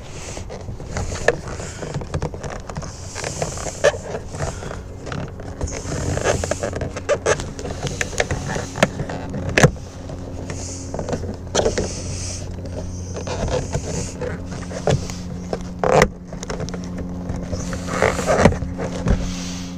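Door trim parts being handled and fitted: scattered clicks, knocks and scrapes, the sharpest about halfway through and again near the end, over a steady low hum.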